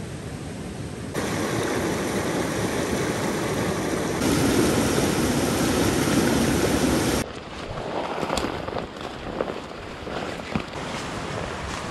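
Rushing water of a small mountain creek tumbling over rocks, loudest from about four to seven seconds in. Then it cuts off suddenly to footsteps on dry fallen leaves, with scattered crackles, and faint water behind.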